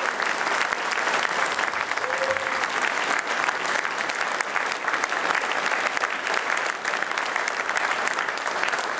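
Theatre audience applauding, a dense, steady clapping that follows an opera music number.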